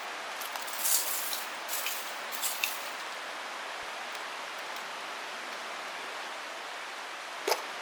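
Flint struck against a steel fire striker, a few sharp scraping clicks in the first three seconds and one more near the end, over a steady hiss.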